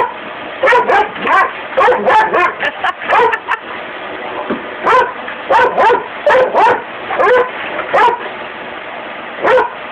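A dog barking repeatedly at a running shop vacuum, about twenty sharp barks in quick runs with a short lull a few seconds in. The vacuum's steady rushing hum runs underneath.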